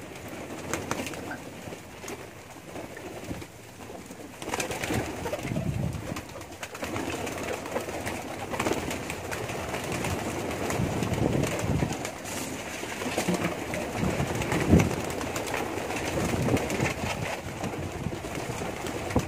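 A flock of domestic pigeons cooing in low, rolling calls that overlap and grow fuller from about four seconds in, with scattered light clicks and taps among them.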